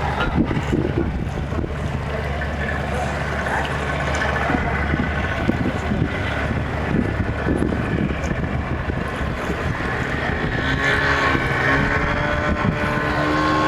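A boat engine running steadily with a low hum, with wind noise on the microphone. Near the end, further pitched sounds join in.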